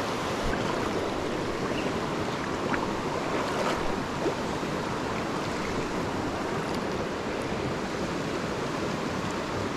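Shallow stream riffle running steadily over rocks, close by.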